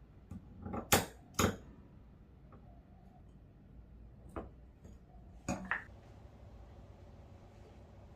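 Several sharp knocks and clatters of hard objects being handled: two loud ones close together about a second in, a single one past the middle, and a quick pair a little later.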